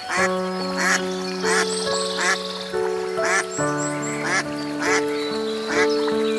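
Background music with held chords, over which an animal gives short calls in quick succession, roughly two a second, with faint high chirps now and then.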